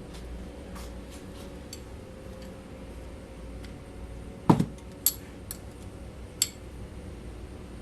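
Small metal clicks and clinks of tools and carburetor parts being handled, with one duller knock about four and a half seconds in and a few sharper clicks after it.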